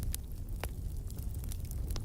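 Wood fire crackling in a fireplace: scattered sharp pops and snaps over a steady low rumble, with a louder pop about two-thirds of a second in and another near the end.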